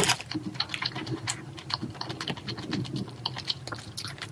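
Close-miked eating sounds: a quick, irregular run of small sharp clicks from chewing and from wooden chopsticks tapping the plastic noodle bowl and a small ceramic bowl, over a faint low hum.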